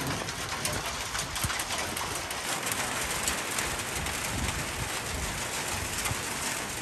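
Rain falling steadily, a dense even patter of drops.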